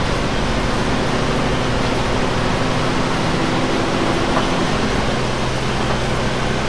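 Inside a moving city bus's passenger cabin: a steady low engine drone under road and air noise. The engine note changes about five seconds in.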